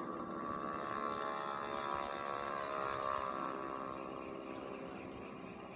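Soundtrack of an animated video played through a TV's speakers: a steady drone with many overtones that swells and then fades away.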